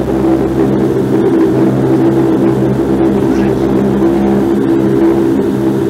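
Bombardier Q400 Dash 8's Pratt & Whitney PW150A turboprop engines and six-bladed propellers heard from inside the cabin while taxiing: a loud, steady propeller drone of several even hum tones over engine rush.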